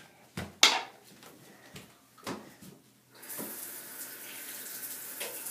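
A few sharp knocks and clatters, then a bathroom sink tap turned on about three seconds in, water running steadily into the porcelain basin.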